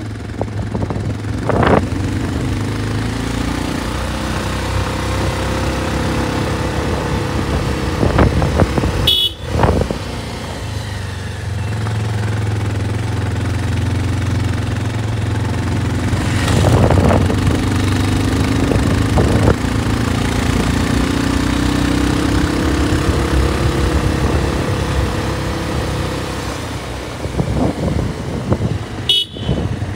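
Bajaj Pulsar 220F motorcycle's single-cylinder engine running under way, its note climbing slowly over several seconds midway and then easing back, with a steady rush of wind over the helmet microphone.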